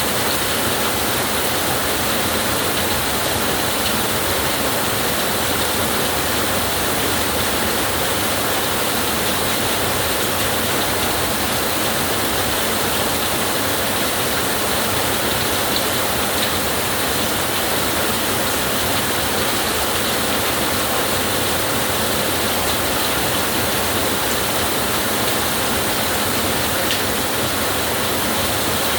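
Steady heavy rainfall, an even hiss of falling water that stays at the same level throughout.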